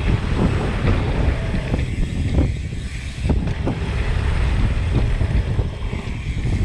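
Wind buffeting the microphone of a mountain bike ridden fast downhill over dirt jumps, over a steady rumble of tyres on hard-packed dirt, with a few sharp thumps from bumps and landings.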